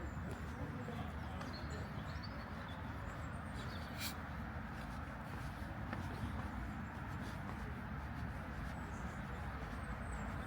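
Outdoor park ambience: a steady low rumble with faint bird chirps now and then.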